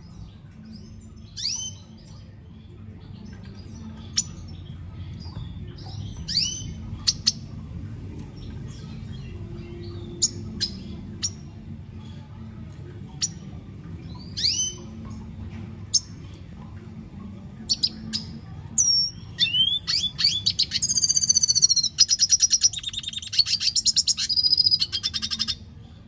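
Male red siskin giving scattered short chirps, then, about two-thirds of the way in, breaking into a loud, fast twittering song full of rapid trills that stops just before the end. A low steady hum lies underneath.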